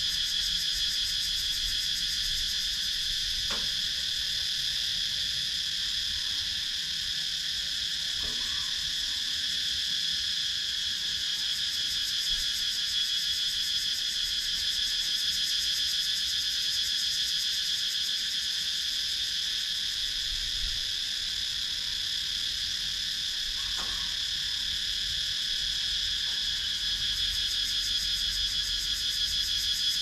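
A chorus of cicadas calling in a steady, unbroken high-pitched drone with a fast pulsing texture.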